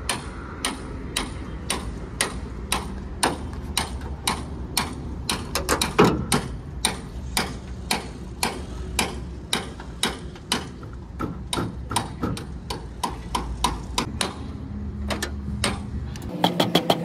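Sharp, even ticks or taps, about three a second, over a low steady hum.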